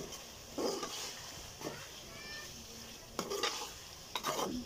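Metal spatula scraping and stirring diced chicken and vegetables in a steel wok, a few separate strokes about a second apart, over a faint sizzle.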